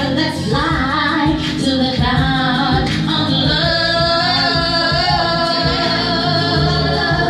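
A woman singing a melody over music with a steady beat.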